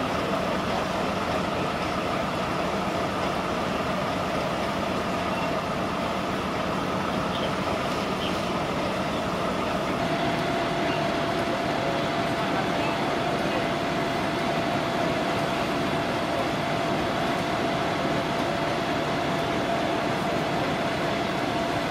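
A vehicle engine running steadily, a continuous drone with a constant hum. Part of the hum drops away about halfway through.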